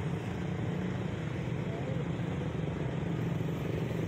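Street traffic at a busy intersection: motorcycles, motorized tricycles and cars passing, with a steady low engine drone.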